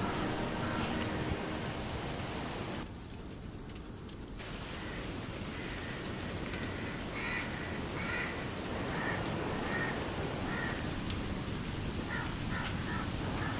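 Steady crackling hiss of oil heating and bubbling in a clay pot over a wood fire. A series of faint, short high chirps repeats through the second half.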